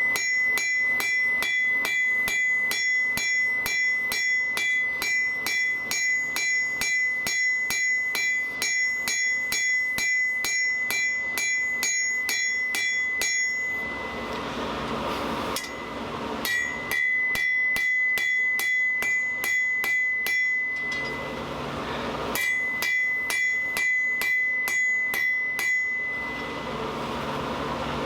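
Steady, rapid hand-hammer blows on hot steel over an anvil, about three a second, with the anvil ringing at a steady high pitch, in three runs broken by two short pauses. The hammering draws out a thin taper on the bar for a ribbon scroll.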